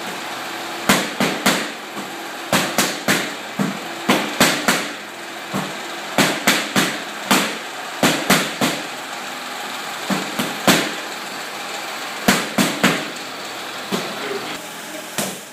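Boxing gloves slapping sharply against a trainer's focus mitts in quick combinations of about three strikes, with short pauses between combinations.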